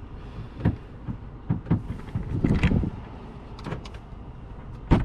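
Car door and cabin sounds of someone getting into a parked car: scattered knocks, clicks and rustles, ending in a loud thump about five seconds in as the door shuts.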